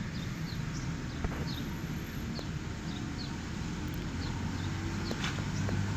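A small bird chirping over and over, short high chirps about twice a second, above a steady low outdoor rumble, with a few faint clicks.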